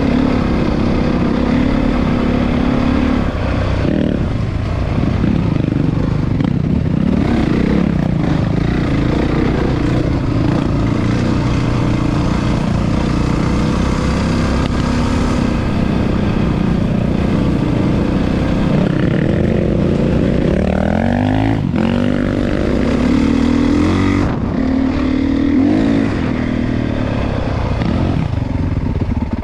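Four-stroke single-cylinder dirt bike engine running under way, its pitch rising and falling with the throttle. About two-thirds of the way through it revs up in a long climb.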